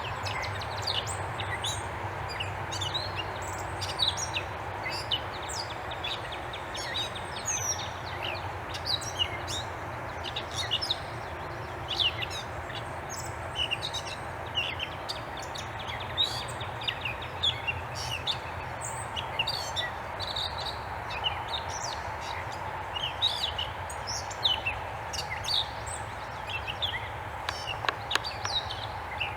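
Several birds chirping in quick, overlapping short calls and sweeps over a steady background hum.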